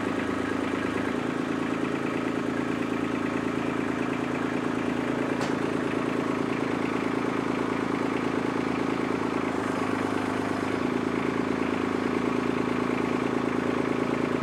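Kubota compact tractor's diesel engine running steadily under load while its loader forks drag a truck frame, its pitch shifting about a second in and again around ten seconds.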